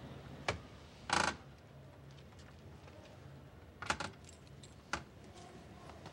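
Keys jangling briefly about a second in, with a few sharp metallic clicks before it and a cluster of clicks later, as of a key working a lock.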